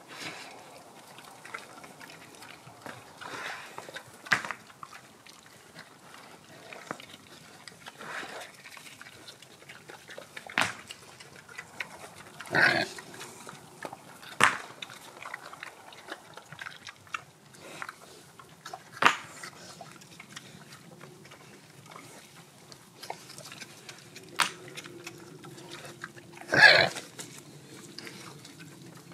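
Pigs grunting and snuffling as they root in the dirt, with short sharp knocks scattered throughout.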